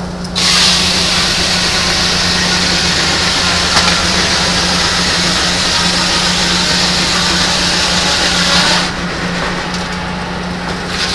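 Steam-powered sawmill's large circular saw blade biting into a log and ripping through it for about eight seconds, then dropping off sharply as the cut ends and the blade runs free, over a steady low hum from the mill's drive.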